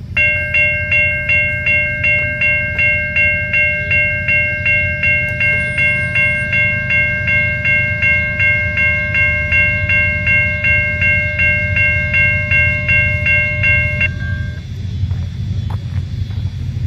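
Railroad grade crossing warning bell ringing rapidly, about three strikes a second, as the crossing signals activate for an approaching train. The ringing stops about fourteen seconds in, once the gate arms are down.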